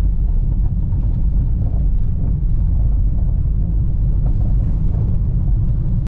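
Car driving on a rough dirt road, heard from inside the cabin: a steady low rumble of tyres and engine over the unpaved surface.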